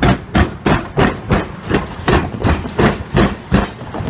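Rhythmic clatter of a Siemens Combino tram's wheels banging over the tram-railway diamond crossing, with about three heavy knocks a second as each axle drops across the railway rails.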